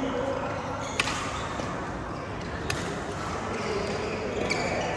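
Badminton rackets hitting a shuttlecock in a rally: two sharp hits about a second and a half apart, with a few fainter short ticks near the end, over steady background noise.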